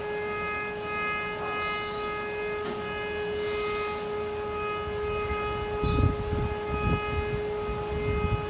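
CNC engraving machine running with a steady high-pitched whine, its upper overtones pulsing on and off; irregular low rumbling joins about six seconds in.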